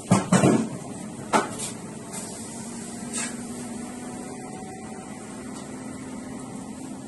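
Kitchen clatter: a few sharp knocks in the first second and a half and a softer one about three seconds in, over the steady hum of a commercial kitchen's extraction hood.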